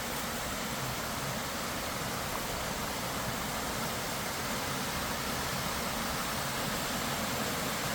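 Small creek waterfall pouring steadily into a pool, an even rushing of water.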